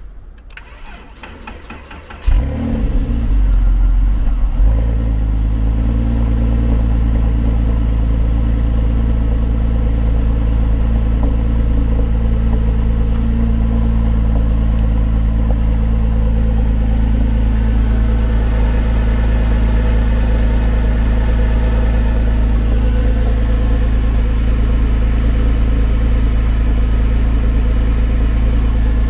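Cold start of a 2006 Porsche 911 (997) Carrera 4S's 3.8-litre flat-six. The starter cranks for about two seconds, then the engine catches with a brief rev flare and settles into a steady fast idle.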